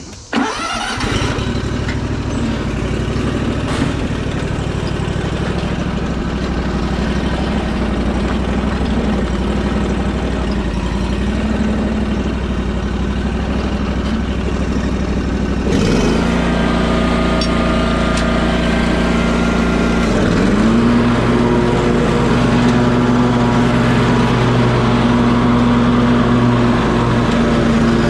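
A vehicle engine starting about a second in and running steadily. Its note dips and then settles higher twice, about halfway through and again a few seconds later.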